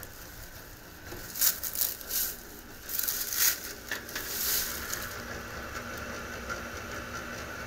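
A few short, irregular rattling and scraping handling noises over a steady low hum.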